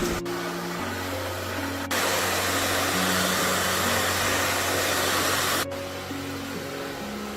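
A loud, steady rushing hiss, like air from a blower, starts suddenly about two seconds in and cuts off after about four seconds, over background music.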